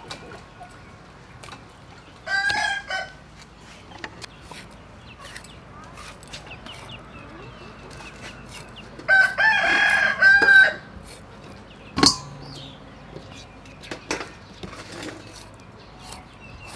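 A rooster crowing twice: a short crow a little over two seconds in, then a longer, louder one around nine to ten and a half seconds in. Knife chops on a wooden cutting board fall between and after the crows, with a sharp one about twelve seconds in.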